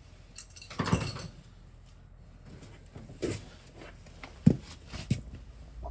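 A short clattering scrape about a second in, then a few separate sharp knocks, the loudest one about four and a half seconds in.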